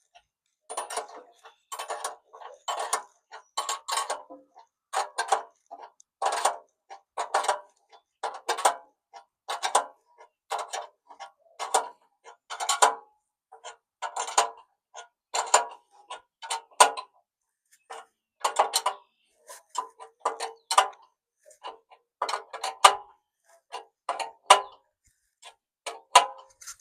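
Dogs barking over and over, one to two barks a second, with short gaps between runs.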